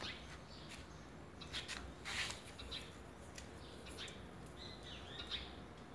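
Faint, short, high bird chirps every second or so, with a low background hum.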